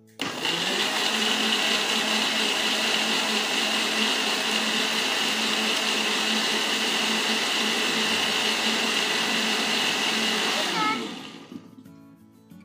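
Countertop electric blender switched on and running steadily as it grinds shallots, garlic, ginger and galangal with a little water into a wet paste. It is switched off about eleven seconds in, its motor winding down with a falling whine.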